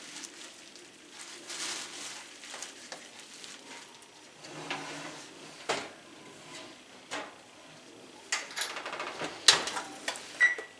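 A roasting pan with a bagged roast being slid into an electric oven: metal clatter and knocks of pan and rack, with the sharpest knock near the end as the oven door is shut. A short electronic beep from the oven controls follows right at the end.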